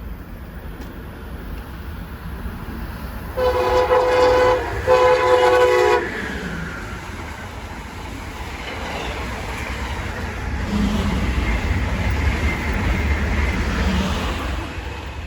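A Northeast Corridor passenger train's horn sounds two blasts of about a second each, several tones together, followed by the train's rumble growing loud as it passes and easing off near the end.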